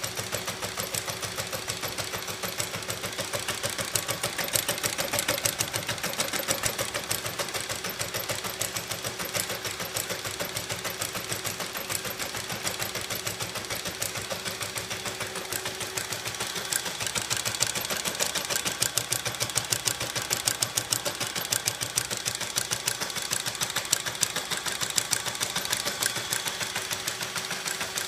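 Homemade magnet-driven 'ornithopter engine' model running fast, its swinging arm and flywheel linkage making a rapid, even clatter of metal parts over a steady hum.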